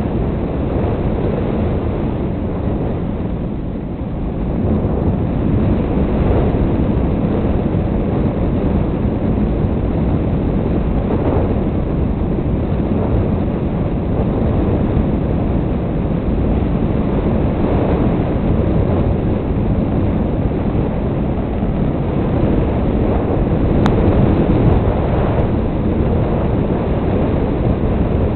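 Wind rushing over an RC model plane's onboard camera microphone, mixed with the plane's motor and propeller, heard as a loud, steady, low noise in cruising flight.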